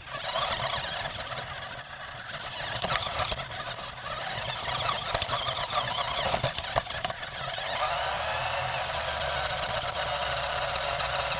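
Small electric toy truck driving, its motor and hard plastic wheels running on rough pavement with a few sharp knocks from bumps. About eight seconds in the sound steps up and becomes louder and steadier.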